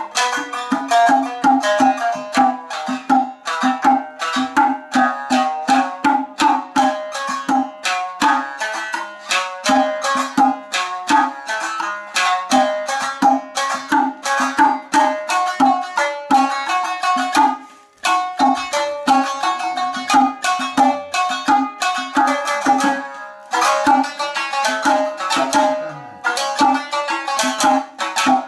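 Shamisen playing nagauta: a quick, steady run of sharp plucked notes, pausing briefly about two-thirds of the way through.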